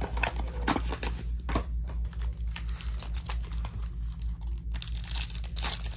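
Foil Topps Chrome card pack crinkling and tearing as it is handled and ripped open by hand: a run of short crackles and rips, busiest near the end, over a low steady hum.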